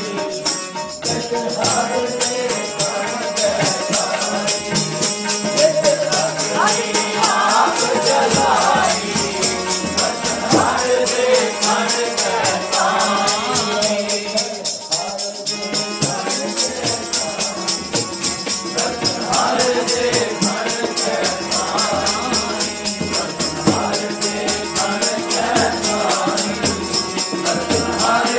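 Sikh kirtan: voices singing a hymn over harmonium accompaniment, driven by a fast, steady jingling percussion beat.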